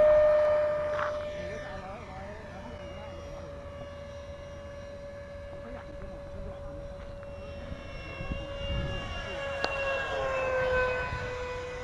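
Radio-controlled model jet's jet engine whining on one steady high note. It is loud at first and fades as the plane flies away, then grows louder again and drops in pitch as the jet passes overhead about ten seconds in.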